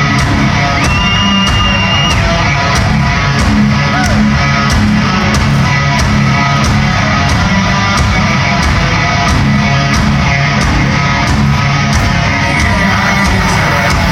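Loud heavy rock music: electric guitar and drums driving a steady beat.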